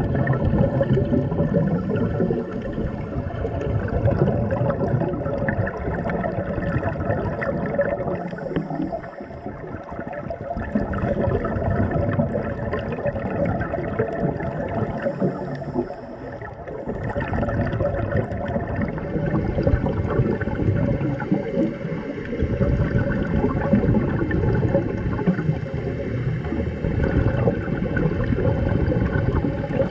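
Underwater sound of scuba divers breathing through their regulators: exhaled bubbles gurgling continuously, over a steady low hum.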